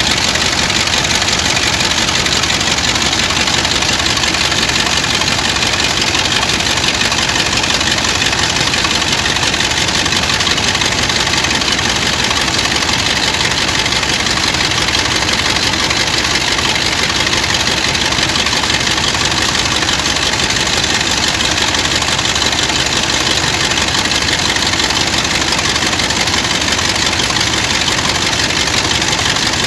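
Dredger diesel engine running at a steady speed, driving a centrifugal sand pump through a gearbox, with sand-and-water slurry splashing out at the pump. A loud, even mechanical din with no change in speed.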